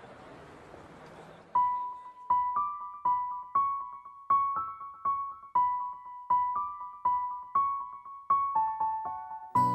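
Background music: a simple high piano melody, one note at a time, each struck and dying away, after a faint hiss at the start. A fuller accompaniment comes in near the end.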